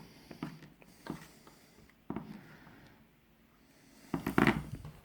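Small clicks and scrapes of plastic prying picks working under a phone's glued rear glass, with a louder, longer scraping burst about four seconds in.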